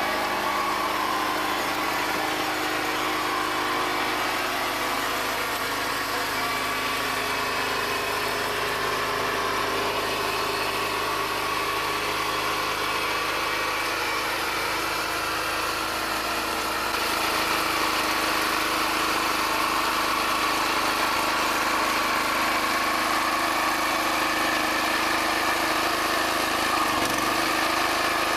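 Small engine of a ride-on tracked field cultivator running steadily as it works along a leek row, a little louder from about two-thirds of the way through.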